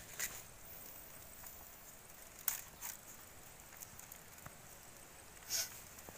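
A few brief rustles over a faint, steady, high-pitched hiss, the loudest about two and a half seconds in and another near the end.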